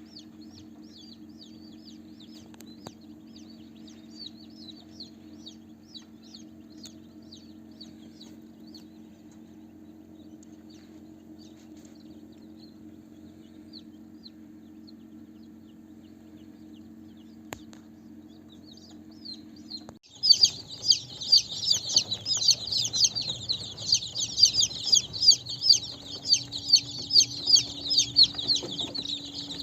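Chicks peeping: faint high peeps over a steady low hum at first, then, about two-thirds of the way in, a sudden change to loud, dense peeping from many chicks.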